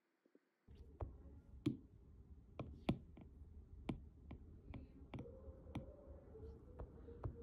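Stylus tip tapping on a tablet's glass screen while drawing: irregular sharp clicks, about a dozen, over a low background noise that comes in under a second in.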